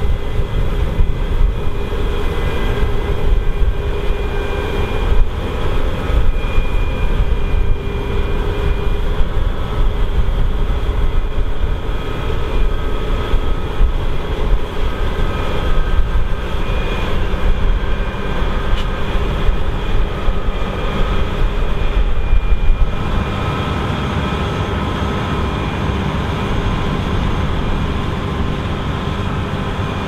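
Claas Lexion 8900 combine harvester working under load in canola: its large MAN six-cylinder diesel, threshing rotors and straw chopper running together as a dense, loud machine noise with several steady high whining tones. About 23 seconds in the sound changes abruptly and becomes smoother and steadier.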